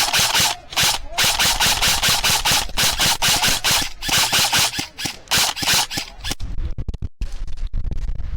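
Airsoft electric gun firing a rapid string of single shots, several a second, each a short mechanical crack, stopping about six seconds in; low rumbling handling noise on the gun-mounted microphone follows.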